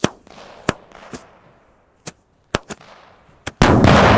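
Knallfrosch (German jumping-jack firecracker) going off: about seven separate sharp cracks, then a much louder bang near the end that rings on and slowly fades.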